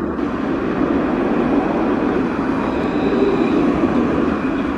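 Alstom Citadis low-floor tram passing close by, a steady rolling rumble of wheels on rail with a faint high whine above it.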